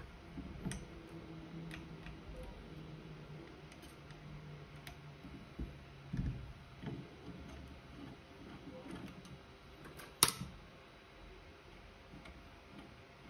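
Small clicks and knocks of hands handling and dismantling the clay extruder head of a Tronxy ceramic 3D printer, with one sharp click about ten seconds in, over a faint steady hum.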